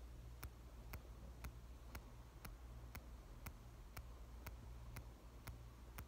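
On-X mechanical aortic heart valve ticking: faint, sharp clicks about twice a second, evenly spaced, made by its pyrolytic carbon leaflets.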